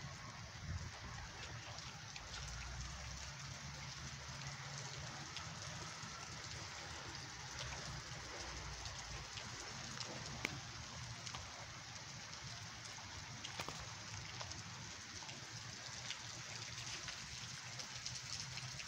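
Steady rain falling, with scattered sharper ticks of individual drops striking close by.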